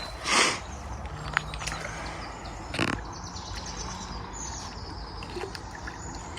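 Quiet outdoor ambience with faint bird chirps. There is a short noisy burst about half a second in and another brief one near three seconds, with a few small clicks between them.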